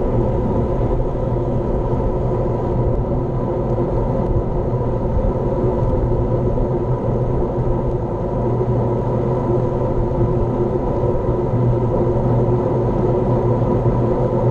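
Steady, loud rumble of wind buffeting and tyre-on-asphalt noise, picked up by an action camera riding on a road bike.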